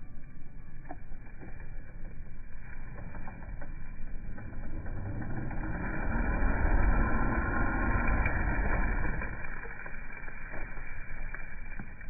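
An engine running, growing louder to a peak a little past halfway and then fading again, like a motor vehicle or boat going past.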